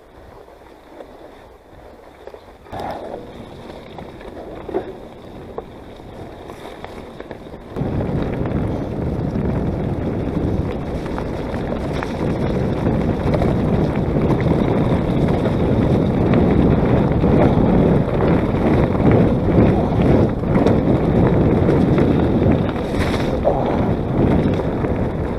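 Wind buffeting the camera microphone while riding a mountain bike. It starts suddenly about eight seconds in and stays loud and rumbling, after quieter trail rustle and faint clicks.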